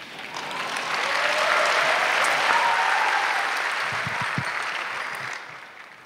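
Theatre audience applauding, swelling over the first second, then dying away near the end.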